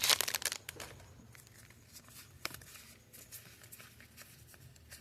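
Pokémon card booster pack wrapper crinkling and tearing open, then faint rustles and light clicks of the cards being handled, one sharper click about halfway through.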